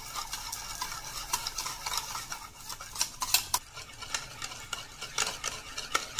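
Metal wire whisk beating an egg with sugar in a bowl: a quick, uneven run of clicks and taps as the wires hit the sides of the bowl.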